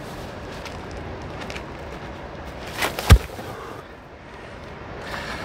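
A heavy Japanese lifting stone (chikaraishi) is dropped to the ground: a light knock and then one heavy thud about three seconds in.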